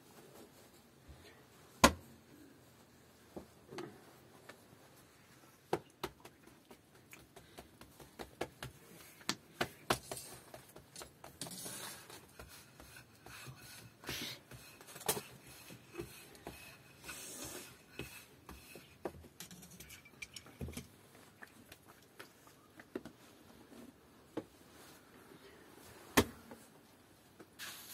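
Irregular knocks, clicks and short scrapes of objects being handled, with a sharp knock about two seconds in and another near the end.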